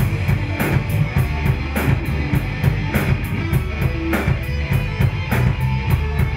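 A live rock band playing an instrumental stretch of a reggae-rock song: guitar, bass and drum kit, with regular hi-hat or cymbal strokes.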